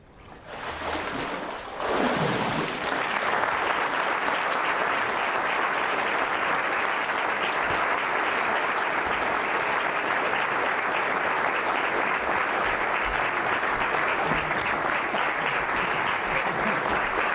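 Congregation applauding a full-immersion baptism. The clapping builds over the first two seconds and then goes on steady and dense.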